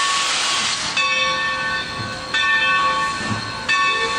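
Steam locomotive 3025 pulling away, its steam hissing loudly through the first second. After that its bell rings, struck three times about a second and a third apart, over continuing steam hiss.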